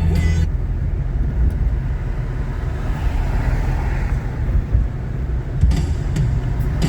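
Steady low rumble of a car on the road: engine and tyre noise. Music cuts off about half a second in and comes back near the end.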